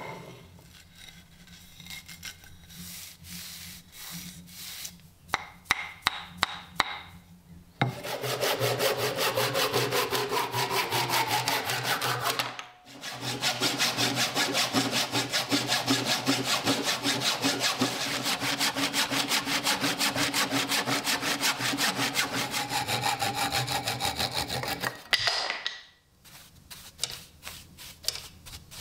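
Saw cutting through a walnut block in two long, steady passes. There is a short break between them, about halfway through. Before the cuts come a few knocks of the wood being handled, and near the end there is light rubbing as sawdust is brushed away.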